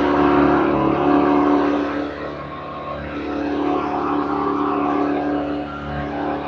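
Hoover Convertible U4597 upright vacuum cleaner running on its 4.8-amp single-speed motor, a steady pitched hum. The level dips about two seconds in and then comes back. The machine is running well and sounds really good.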